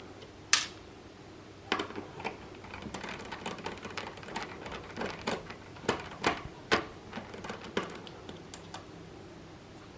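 Irregular small clicks and taps of a screwdriver working screws out of the Xbox One S console's internal plastic parts. There is one sharp click about half a second in, then a busy run of clicks that thins out near the end.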